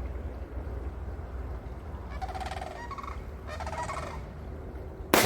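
Two gobbles from a turkey, each a rapid rattling call lasting well under a second, over a steady low rumble. Near the end comes a single rifle shot from a 6.5 Creedmoor Tikka T3x, the loudest sound.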